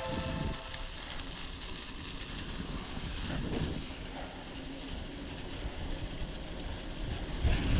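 Mountain bike rolling downhill on a sandy dirt trail: tyre noise on the dirt, bike rattle and wind on the helmet camera's microphone, an even rumble with no music.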